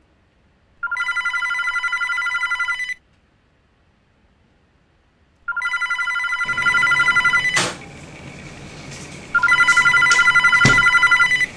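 Corded landline desk telephone ringing with an electronic trill: three rings of about two seconds each, with gaps of about two and a half seconds between them. A couple of short knocks sound between the later rings.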